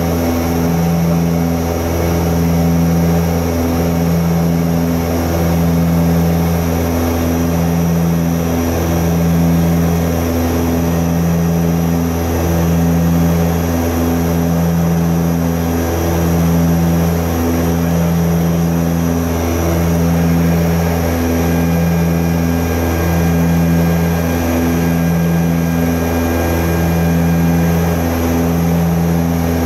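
Antonov An-24B's Ivchenko AI-24 turboprop engines and propellers droning steadily, heard inside the cabin. The drone pulses in a slow, regular beat about once a second, the beat of the two propellers turning at slightly different speeds.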